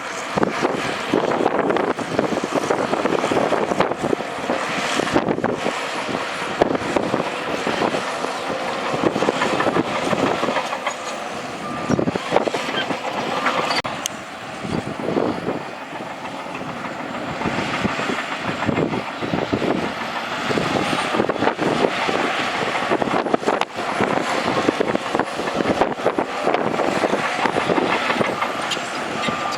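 Crawler bulldozer at work: its diesel engine runs under load, with irregular clanking from the steel tracks and the scrape and knock of rock and dirt being pushed.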